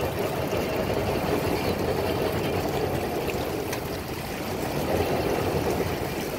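Steady rushing, pouring water with a low rumble beneath it.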